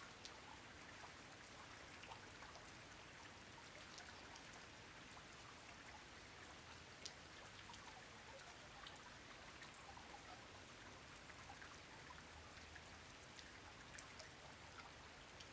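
Steady, faint rainfall with many separate drops ticking through an even hiss.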